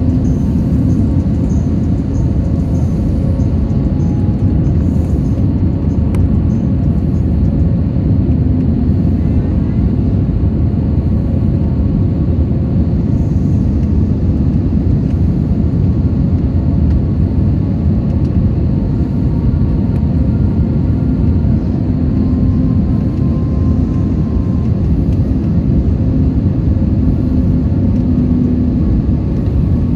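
Steady cabin noise of a jet airliner on final approach with flaps extended: the engines' drone and the rumble of air over the airframe, with a faint steady hum running through it.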